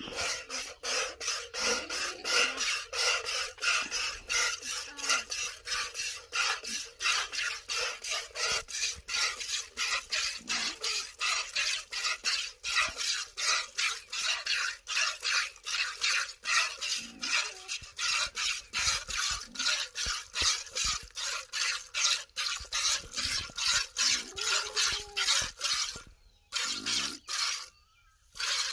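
Cow being milked by hand into a plastic bucket: rhythmic jets of milk squirting into the bucket in quick alternating strokes, breaking off briefly twice near the end.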